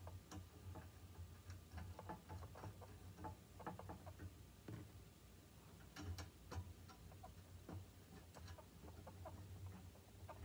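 Faint, irregular small clicks and ticks of metal screws and hex nuts being handled and fitted by hand on a perforated VEX metal frame, over a low steady hum.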